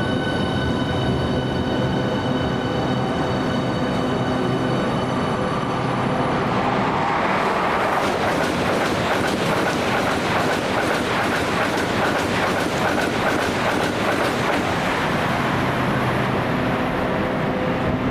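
Eurostar Class 374 (Siemens Velaro e320) high-speed electric train passing through a station without stopping. A steady electric whine rises into a loud rush of wheels on rail, with rapid clicking, as the carriages go by at the middle. The whine returns as the train moves away.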